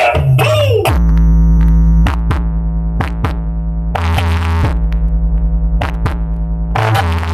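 Bass-heavy electronic dance music played loud through a large horeg sound-system rig in a sound check. A synth sweep falls in pitch, then a deep, sustained bass comes in about a second in, under regular drum-machine hits.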